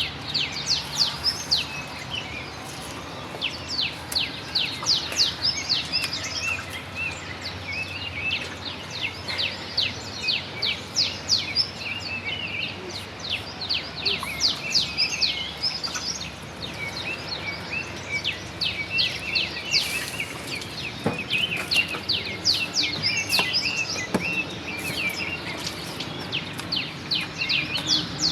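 Small birds chirping rapidly and continuously, many short high chirps overlapping in a busy chorus. A few faint knocks sound about three-quarters of the way through.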